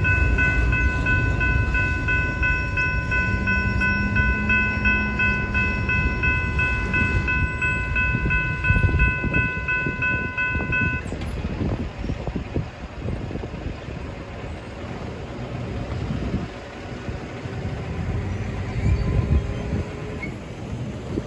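Freight train's last cars rolling past with a low rumble from wheels on rail, and a railroad crossing bell ringing steadily until both stop about halfway through. Road vehicles then drive over the crossing near the end.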